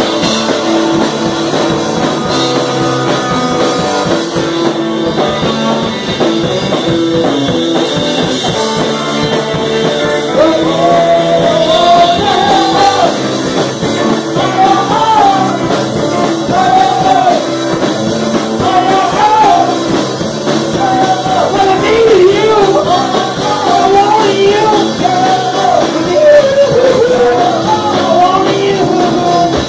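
A 1960s-style mod and psychedelic rock band playing live on electric guitars, bass and drum kit, loud and continuous. A wavering melody line comes in about ten seconds in.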